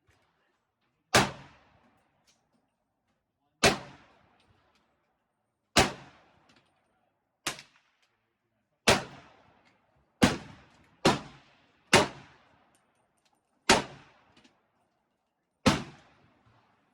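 300 Blackout AR-15 pistol fired in single, deliberate shots: about ten shots spaced one to two seconds apart, each with a short fading echo.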